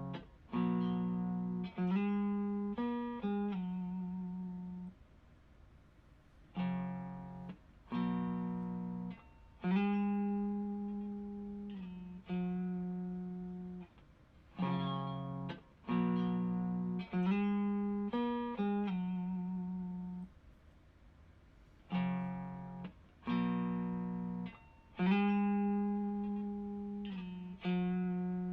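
Overdriven electric guitar: a Stratocaster's neck single-coil pickup through an Xotic Effects SL Drive pedal into an Orange Micro Dark amp. It plays a short looped phrase of sustained notes and chords, some with a little vibrato, that repeats about every seven and a half seconds.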